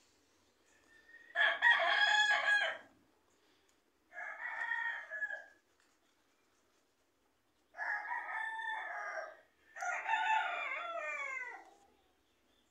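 Rooster crowing four times in a row. The first crow is the loudest, and the last falls in pitch at its end.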